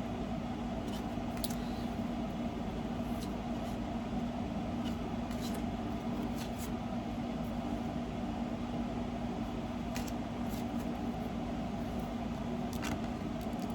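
A steady low mechanical hum, with a few faint scattered clicks and taps from cards being handled.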